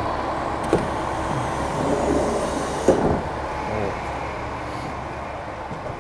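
The push-button door of a KiHa 40 diesel railcar sliding open: a hiss of air, a click under a second in, and a sharp knock about three seconds in as it reaches its stop, over the low steady rumble of the idling railcar.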